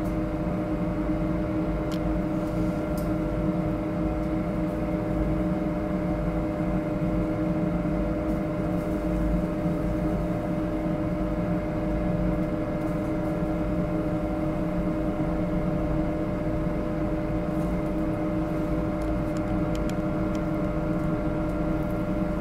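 Steady machine hum holding a couple of even tones, with a few faint ticks.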